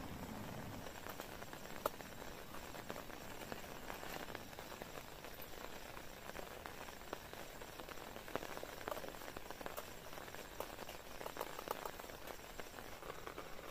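Rain pattering on a tent: a steady hiss with many small, scattered drop ticks.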